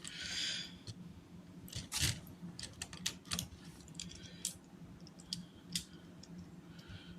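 Plastic Lego Technic pieces clicking and knocking as they are handled and pressed together, a dozen or so separate sharp clicks with the loudest about two seconds in. A short rustle comes at the start.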